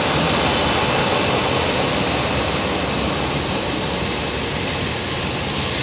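Class 47 diesel locomotive's Sulzer V12 engine working hard as it pulls away with a train, heavy black exhaust showing it on full power, then passenger coaches rolling past on the rails. A loud, steady din that eases a little near the end.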